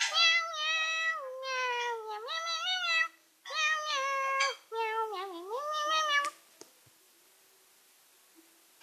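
Domestic cat meowing: three long, drawn-out meows in about six seconds, each sliding down and back up in pitch.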